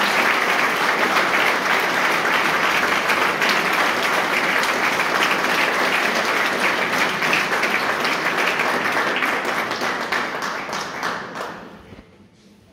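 Audience applauding: dense clapping that thins into scattered separate claps about ten seconds in and dies away shortly before the end.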